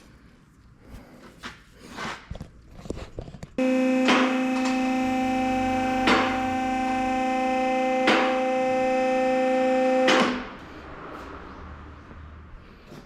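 A steady machine hum of several fixed tones that starts abruptly a few seconds in and stops about seven seconds later, with a sharp click about every two seconds while it runs.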